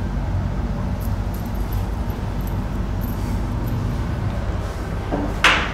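Steady low background hum with no speech, and a brief rush of noise near the end.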